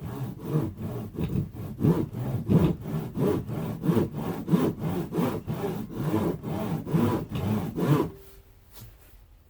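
Footsteps and rustling, scraping brush as someone pushes on foot through thick bushes, in an even rhythm of about two to three strokes a second that stops about eight seconds in.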